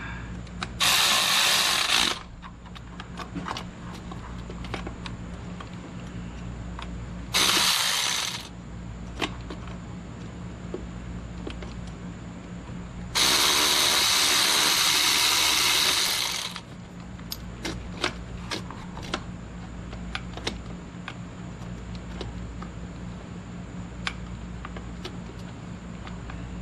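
Power ratchet running two Torx screws into a throttle position sensor on a throttle body, in three spurts: two short ones and a longer one of about three seconds. Light clicks of the tool and parts being handled come between and after them.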